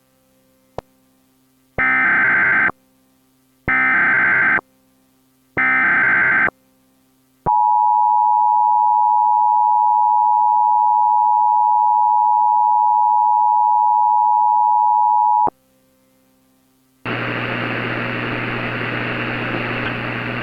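Emergency Alert System header: three short screeching bursts of digital data about two seconds apart, then the steady two-tone EAS attention signal held for about eight seconds before it cuts off. A short gap follows, then a steady hiss starts near the end.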